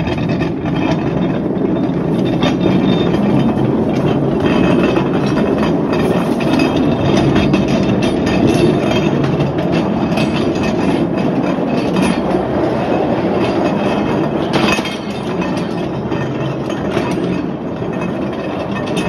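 Steel wheels of an old mine rail car rolling along the track: a steady rumbling clatter, with a few sharp clanks, one a couple of seconds in and one about two-thirds of the way through.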